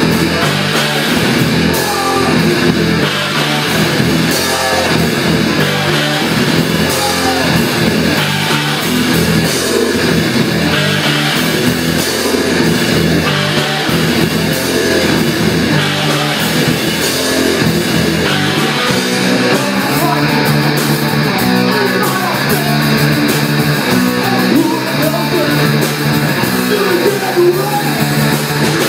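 Live rock band playing loud, heavy punk-metal: electric guitar over bass and drums, without a break.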